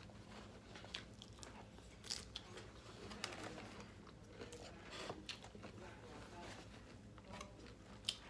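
Close-miked chewing of salad greens, with scattered soft, crisp crunches as the lettuce is bitten and chewed.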